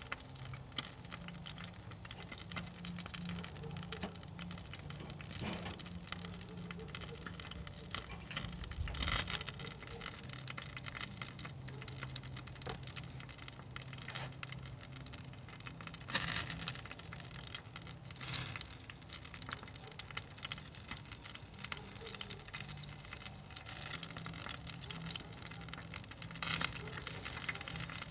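Lit charcoal in a Weber kettle grill sizzling and crackling as sauce and fat drip from the glazed turkey wings onto the coals, with a steady low hum underneath. A few brief louder noises come through, about a third of the way in, twice past the middle, and near the end.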